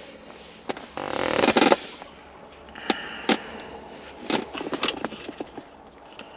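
Handling noises from work in a car's dash: a loud rustling scrape about a second in, then a string of sharp clicks and knocks.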